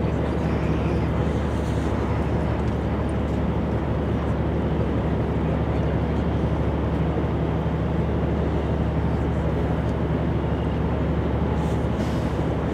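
Steady low drone of heavy machinery at a bridge demolition site, an engine running at a constant speed with an even hum that does not change.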